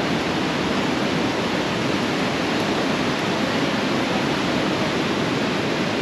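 Waterfall: a loud, steady rush of falling water with no breaks.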